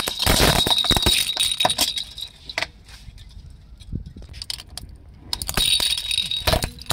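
Hard plastic toys, a baby rattle and a small blue plastic cup toy, cracking and shattering under a rolling car tyre, with the rattle's insides jingling and pieces clinking on the asphalt. It comes in two loud bursts, one over the first two seconds and another about five seconds in, with scattered small clicks between.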